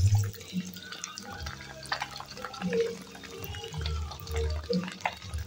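Rice-field eels deep-frying in a wok of hot oil: a steady sizzle scattered with sharp pops and crackles.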